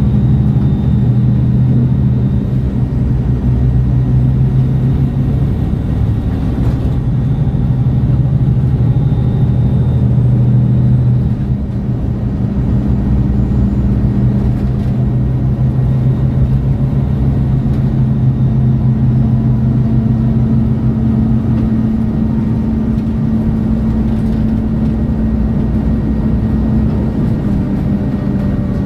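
MAN A23 Lion's City G articulated city bus's diesel engine idling at a standstill, a steady, even note whose pitch shifts slightly about eleven seconds in.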